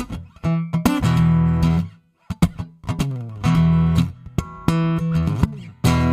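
Segovia F07 acoustic-electric guitar played, with strummed chords and single picked notes that are cut off abruptly; it stops briefly about two seconds in, then carries on.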